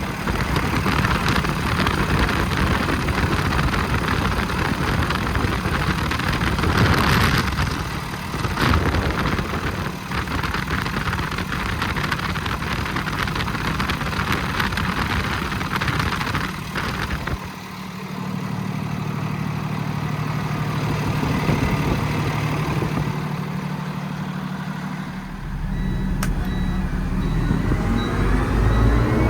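Cummins ISL 8.9-litre diesel of a 2014 Freightliner M2 truck running under way, its engine drone under a broad rush of road and wind noise. A little past halfway the rush drops off and the engine settles to a steadier low drone. The deep rumble rises again near the end.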